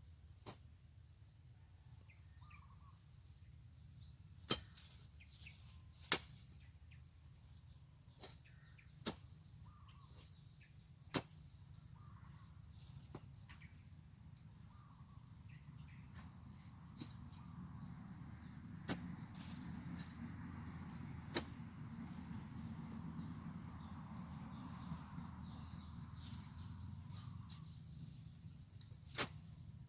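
Rural outdoor ambience: a steady high insect drone, broken by about nine sharp knocks at irregular intervals. A low rustling noise swells up and dies away in the middle.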